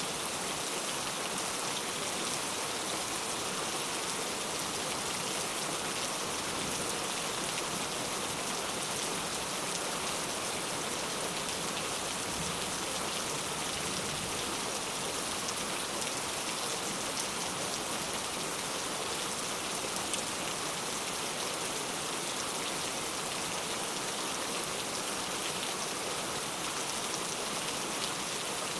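Steady rain falling on a surface, an even patter of countless drops with faint individual drop ticks, unchanging throughout.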